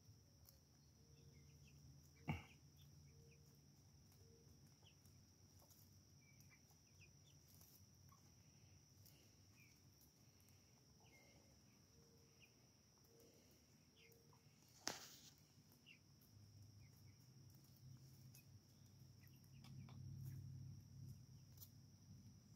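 Faint soft clucking from chickens foraging, short low notes about half a second apart, over a steady high-pitched insect trill. Two sharp clicks, about two seconds in and again near fifteen seconds, are the loudest sounds.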